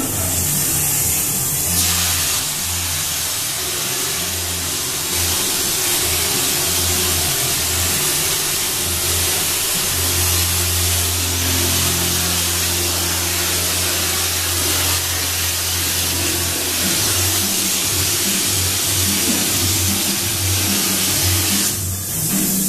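Drywall texture hopper gun spraying knockdown compound onto a ceiling: a loud, steady air hiss with a low hum underneath, thinning just before the end.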